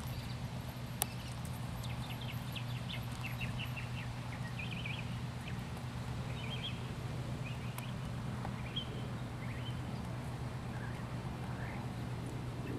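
Soft hoofbeats of a Missouri Fox Trotter mare gaiting on grass, under a steady low hum. There is a single sharp click about a second in, and small birds chirp through the middle.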